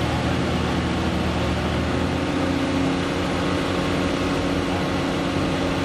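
Unimog 404 S trial truck's engine running steadily as the truck crawls slowly through mud.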